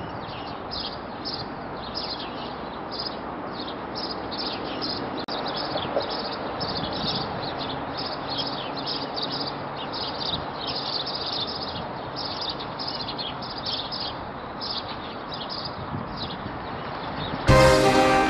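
Small birds chirping constantly in quick, repeated calls over a steady hum of city traffic. Music cuts in near the end.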